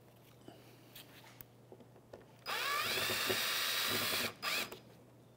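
Cordless drill with a Phillips bit spinning out a plastic bumper clip: about two and a half seconds in, the motor whines up to speed and runs for under two seconds, then stops, followed by a short second burst. Light handling clicks before it.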